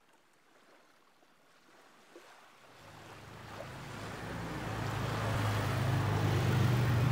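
A steady rushing noise with a low hum beneath it, fading in from near silence over the first few seconds and growing louder.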